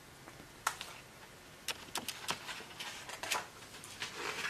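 A hardcover picture book being lowered and its pages handled and turned: a series of separate sharp clicks and taps, with some paper rustling near the end.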